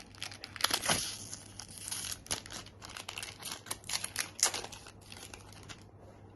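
Plastic packaging being crinkled and torn by hand in a quick, irregular run of crackles and rustles that stops shortly before the end.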